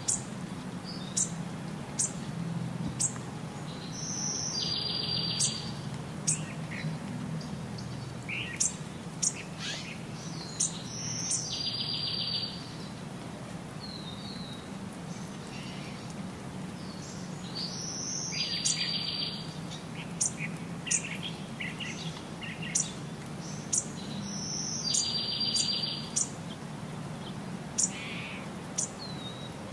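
Birds singing: one bird repeats a short, high song phrase about every six to seven seconds, among scattered brief high chirps, over a low steady hum.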